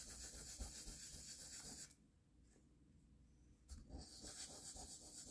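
Hand sanding the edges of cast resin pieces: a faint scratchy rubbing that stops about two seconds in and starts again just before four seconds.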